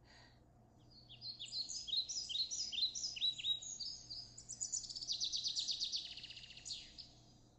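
A songbird singing: a long phrase of quick, high falling notes starting about a second in, speeding into a fast trill before it stops near the end.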